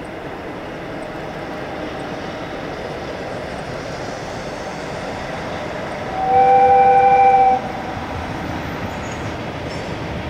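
A freight train hauled by an EF66 electric locomotive rolls steadily across a river bridge. About six seconds in, an air horn sounds one two-note blast lasting about a second and a half.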